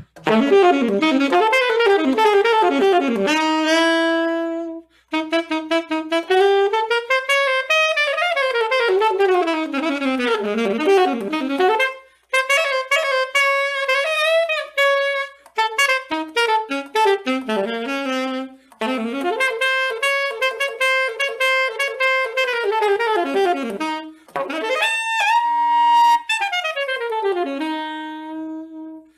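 Solo saxophone playing an unaccompanied melody in long phrases, with brief breaks for breath about 5, 12 and 24 seconds in, ending on a held note.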